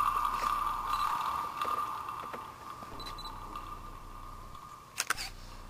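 A man's drawn-out cry of pain slowly fading, with a few faint knocks and a sharp double knock about five seconds in, as the soldier works at the feet of the man on the cross.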